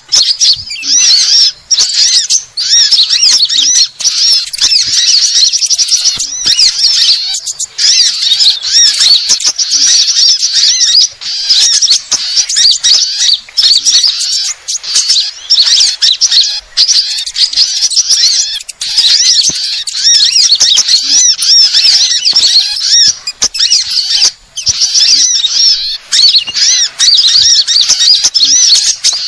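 Bird-lure recording of many small songbirds mixed together: a dense, loud, high-pitched chatter of rapid chirps and squeaky calls, broken by a few brief gaps. It is a lure mix meant to draw small birds in for trapping.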